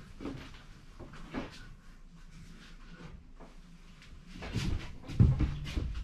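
Clunks and bumps of a heavy wooden window frame being handled and lifted into a steel-framed opening: light knocks at first, then heavier thuds from about four seconds in, the loudest just after five seconds.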